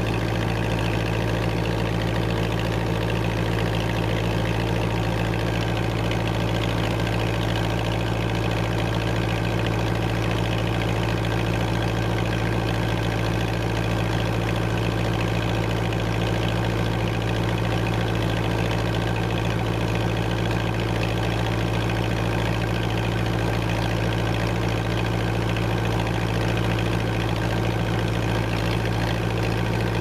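1958 Massey Ferguson 35 tractor's Standard four-cylinder engine running at a steady, even speed as the tractor works the field.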